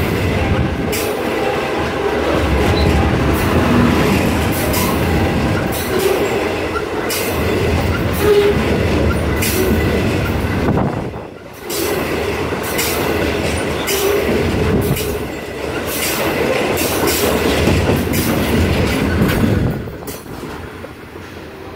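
Freight train of open-top hopper cars rolling past at close range: steady rumble with wheels clicking over rail joints and a few short squeals from the wheels. The noise drops off sharply about twenty seconds in as the last car goes by.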